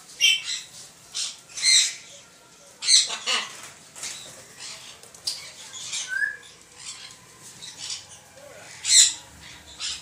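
Macaws giving a series of short, harsh squawks, with wings flapping among them.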